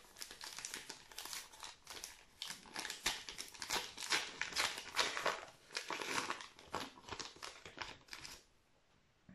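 Trading-card pack wrapper crinkling as it is torn open by hand and pulled off the cards. The crinkling stops about a second before the end.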